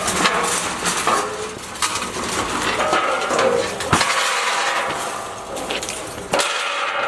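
Heavy steel welding table scraping and clanking against the dump trailer's steel bed as it is moved, with sharp metallic knocks about four seconds in and again near the end.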